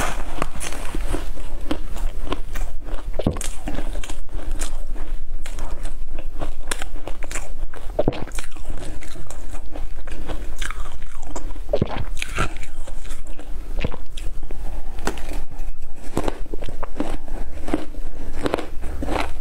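Scraped freezer frost crunched and chewed close to the microphone: a dense, continuous run of crisp crackles and crunches as each mouthful is bitten down.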